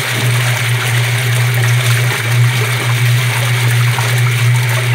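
Colormaq 10 kg tanquinho (semi-automatic washing machine) agitating a load of clothes: a steady low motor hum under sloshing, swishing water. The owner says it runs noisily instead of silently, as if binding or dry at the agitator shaft, or with a slipping belt. No coin rattle is heard.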